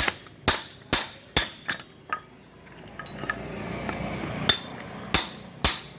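Hammer blows ringing on a length of pipe used as a drift, driving a new wheel bearing into the hub: about six quick metallic strikes, a pause of about two seconds, then three more.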